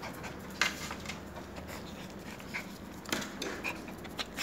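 A puppy panting softly, with a few sudden scuffs about half a second in, three seconds in and near the end.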